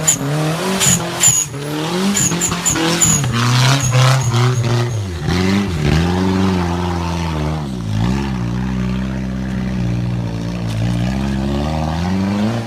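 Suzuki Katana 4x4 with a 1600cc turbo engine revving hard as it churns up a muddy rut, the engine note rising and falling repeatedly with the throttle. Sharp clicks and knocks sound over it during the first few seconds.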